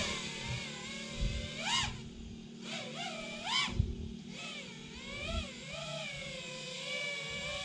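FPV freestyle quadcopter's DJI Snail 2305 2400KV motors whining in flight, the pitch swooping up and down with the throttle. Two sharp rises come about two and three and a half seconds in, then a steadier wavering whine.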